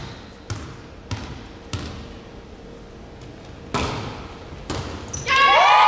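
A volleyball bouncing three times on a sports hall floor, about half a second apart, then two louder hits of the ball a little later. Near the end, girls' voices break into shouting and cheering.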